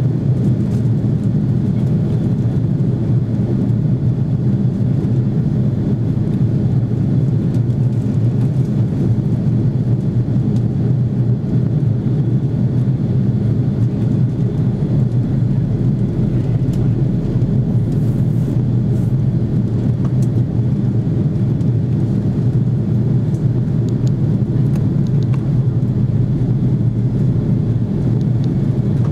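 Steady low rumble of cabin noise inside an Airbus A330 in flight: engine and airflow noise heard from a window seat, unchanging throughout.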